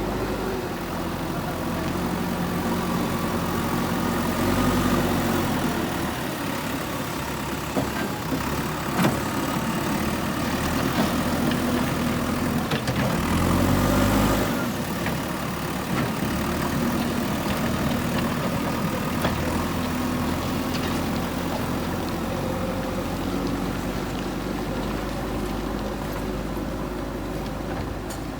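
JCB 3DX backhoe loader's diesel engine running under varying load as it works, the revs rising briefly near the middle, with a couple of sharp knocks about eight and nine seconds in.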